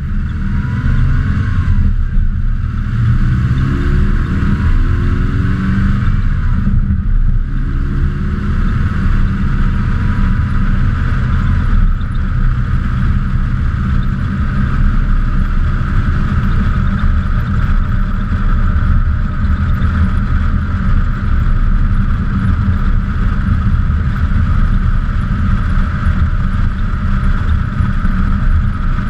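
2002 Subaru Impreza driving, heard close to the wheel from a fender-mounted camera: steady road and wind rumble, with the engine rising in pitch as it accelerates a couple of seconds in and again around eight seconds.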